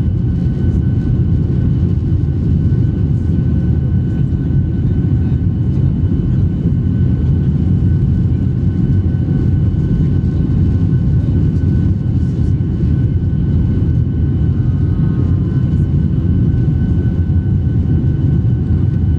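Jet airliner cabin noise from a Skymark Boeing 737-800: a steady, loud engine and airflow rumble with a few faint, steady whine tones above it.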